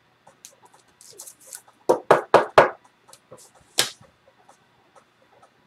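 Rigid plastic card top loader being handled and knocked against the table: four sharp knocks in quick succession about two seconds in, one more a little before four seconds, with light plastic clicks between.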